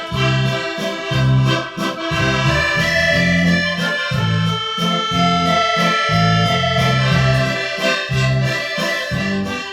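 Intro music led by an accordion, over a bouncing bass line.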